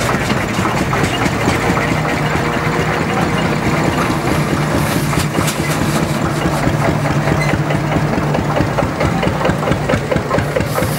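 Steam traction engine driving slowly, its motion and gearing clattering rapidly and evenly over a steady low hum.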